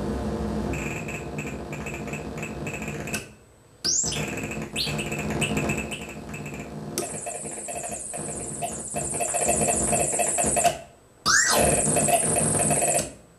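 A hand-built circuit-bent noise machine making harsh, buzzing electronic noise that keeps shifting as its knobs are turned. It cuts out for under a second twice and again near the end, and twice comes back with a fast rising sweep.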